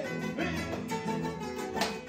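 Three acoustic guitars playing a vallenato paseo together, a picked melody over strummed chords.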